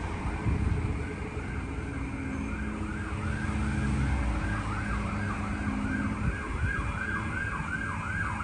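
Emergency vehicle siren on a fast yelp, rising and falling about three times a second, over a low traffic rumble.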